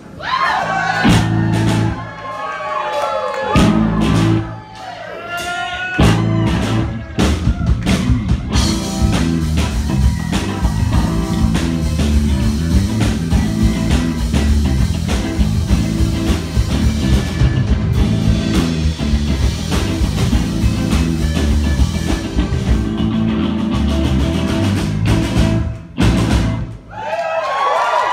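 Rock band playing live: electric guitars, bass and drum kit. The first several seconds are stop-start, with bending guitar notes between gaps. About eight seconds in, the full band comes in with drums and cymbals and plays on steadily, dropping out briefly near the end before the bending notes return.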